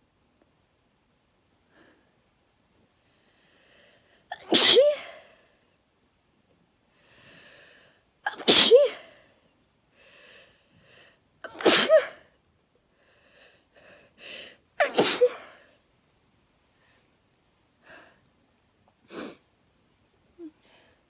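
A person sneezing loudly four times, about three to four seconds apart. Each sneeze comes after a short in-breath and has a voiced 'atchoo' that rises and falls. A few quieter breaths follow near the end.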